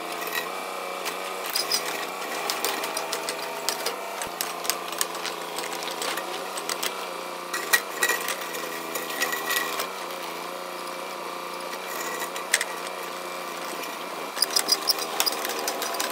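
Mini excavator engine running steadily under hydraulic load while its bucket tooth scrapes and digs through gravel and stony soil, with sharp clatters of stones, most of them near the end.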